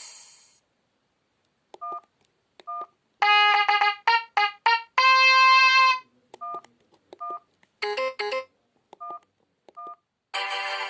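Sony Ericsson W710i phone's built-in sound effects: a series of separate short electronic beeps and jingles with pauses between. There are several brief two-note blips, a quick run of notes about three seconds in, a held chord shortly after, and a longer chord starting near the end.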